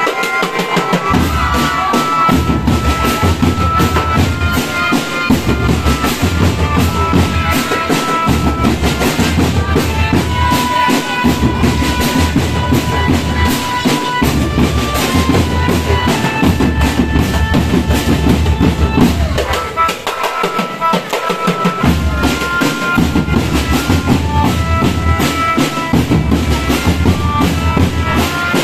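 Marching drum band playing: bass drums and snare drums beating under a melody held on steady tones. The deep bass-drum beat stops for about two seconds past the middle, then comes back in.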